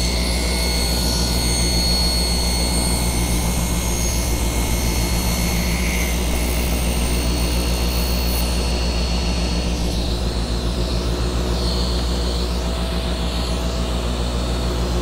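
Table saw running steadily with no cut being made: a constant low machine drone. A thin high whine within it drops out about two-thirds of the way through.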